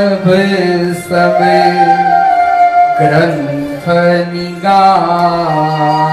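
A man singing a devotional song, holding long notes that change pitch about once a second, with short breaths in between.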